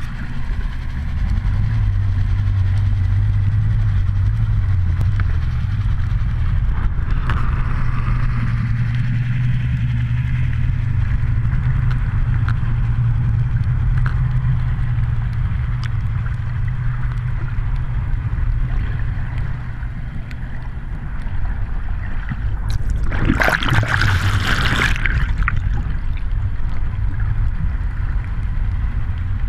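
Low, steady drone of a towing motorboat's engine heard underwater, with water rushing past the camera. About 23 seconds in, a loud burst of splashing noise lasts about two seconds.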